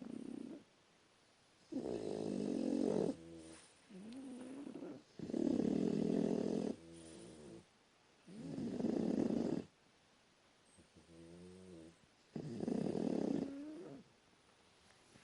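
Snoring in a slow regular rhythm: four loud rasping snores on the in-breath, about three and a half seconds apart. Each is followed by a softer wavering, whistling sound on the out-breath.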